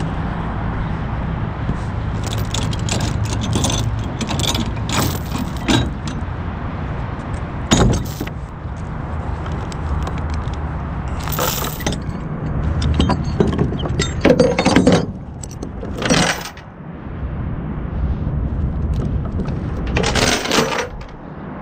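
Binder chains and other metal gear on a flatbed trailer deck jangle and clatter in irregular bursts while the driver handles them. A truck engine idles steadily underneath.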